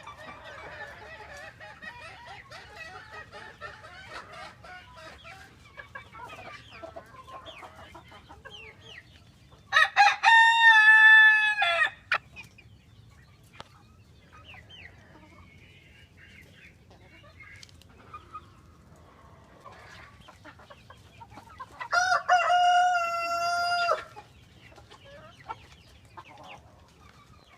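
Rooster crowing twice, about twelve seconds apart, each crow loud and about two seconds long. Between the crows there is soft clucking and chatter from the chicken flock.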